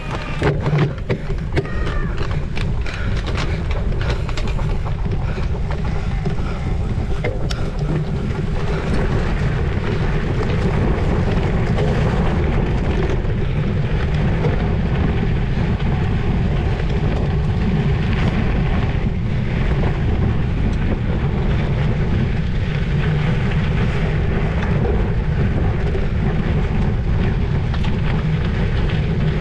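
Wind rushing over the microphone of a camera carried on a cyclocross bike being ridden over rough ground, a steady low rumble. Sharp rattles and knocks, typical of the bike bouncing over bumps, come in the first several seconds and then thin out.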